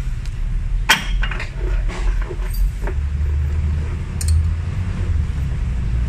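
A few sharp metal clicks and clinks from a socket and ratchet turning a Toyota 7K engine's crankshaft pulley by hand, over a steady low rumble that grows louder about halfway through.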